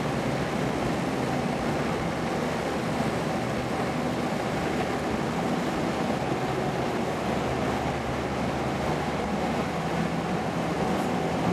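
Hitachi hydraulic excavator's diesel engine running steadily as it works, over the steady rush of flowing floodwater.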